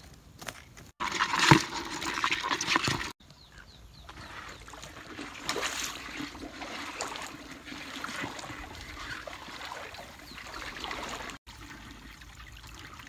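Water trickling and running through a small muddy channel, with a louder, rougher stretch of splashing from about one to three seconds in.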